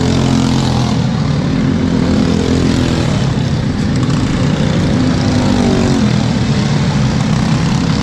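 Briggs & Stratton LO206 kart engines running on the track, their pitch rising and falling as the karts speed up and slow down.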